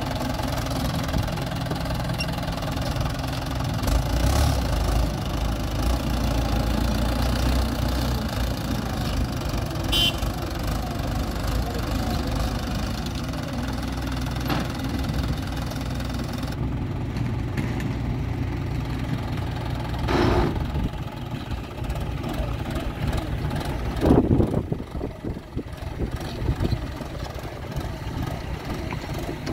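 Mahindra 575 DI XP Plus tractor's four-cylinder diesel engine running steadily as it tows a trailer over rough dirt. A few short knocks sound over it, the loudest near the end.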